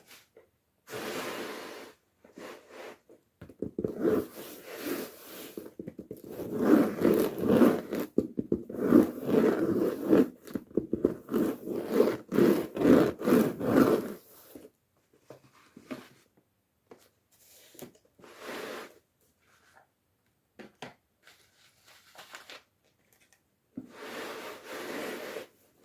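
Toy packaging being opened and handled: irregular scraping, crinkling and tearing, busiest through the middle and then only occasional rustles.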